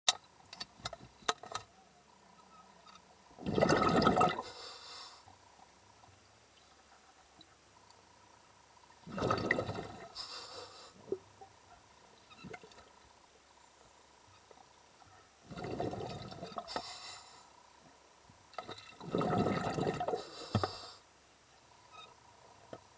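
Bursts of bubbling water picked up by an underwater camera, four times, each lasting a second or two, about five to six seconds apart.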